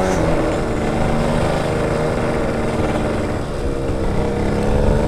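Motorcycle engine running at a steady pitch while riding.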